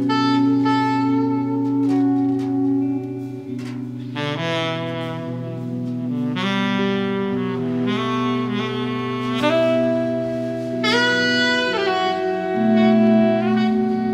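Live jazz led by two saxophones playing long held notes that shift every second or two, over sustained low notes from the rest of the band.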